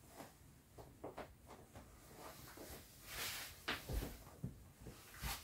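Handling noises from an inflated vinyl toy jet ski: scattered soft knocks and rubbing of the PVC as it is moved and pressed, with a brief swish about three seconds in and the loudest low thumps a bit under four seconds in and just before the end.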